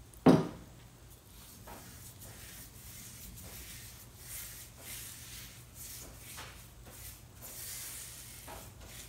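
A tin can set down on a wooden board with one sharp knock just after the start, then faint, irregular strokes of a brush spreading acetone over a wooden cabinet's old finish to strip it.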